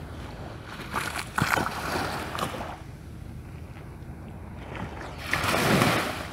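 Small waves washing at the water's edge in two short surges, one about a second in and a louder one near the end, over a steady low rumble.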